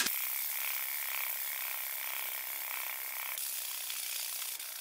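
80-grit sandpaper on a hand sanding block rubbing down body filler on a car panel: a steady scratchy hiss that thins out a little past three seconds in.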